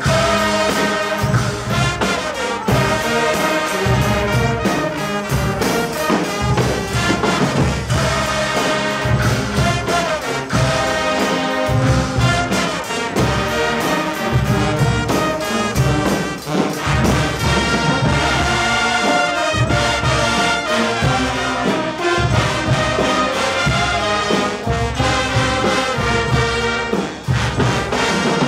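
Guggenmusik carnival brass band playing loud, brassy music: massed trumpets, trombones and sousaphones over a steady drum beat with cymbal crashes.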